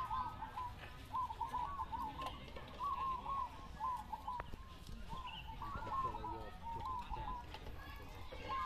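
Several caged zebra doves (perkutut) cooing, their short repeated coo phrases following one another and overlapping without pause.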